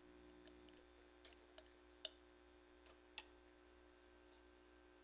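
Near silence with a faint steady hum and a few light, sharp clicks or taps, the sharpest about two and three seconds in.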